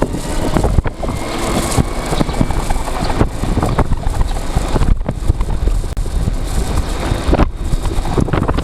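Wind buffeting the microphone, with road noise, while riding a Kymco Candy 3.0 electric scooter: a loud, rough rushing that stays fairly steady, with no engine note.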